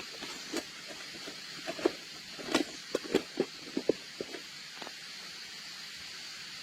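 Gear being packed into a backpack: a quick run of short knocks and clunks, densest in the middle, over a steady background hiss.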